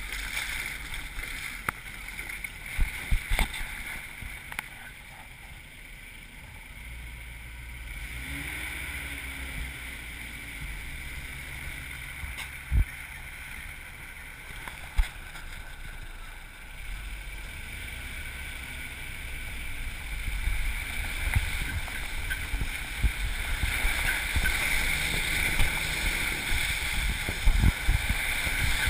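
4x4 driving along a rutted, muddy dirt trail: a steady low rumble of engine and tyres with wind noise, and a few sharp knocks as it jolts over the ruts. It grows louder about two-thirds of the way through.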